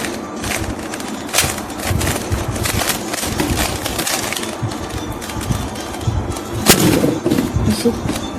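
Plastic Rubik's Cube being turned by hand in quick succession: a run of irregular clicks and rattles as the layers snap round, with one sharper click about two-thirds of the way in.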